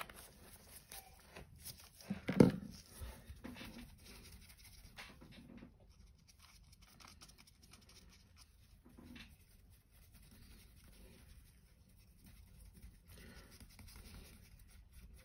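Quiet handling sounds at a hobby painting desk: a paintbrush and gloved hands working at a wet palette, with small rustles and taps and one louder knock about two and a half seconds in.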